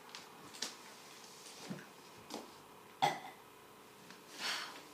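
A person's short breathy and throat sounds, a few separate bursts: the loudest and sharpest about three seconds in, then a longer breathy burst near the end.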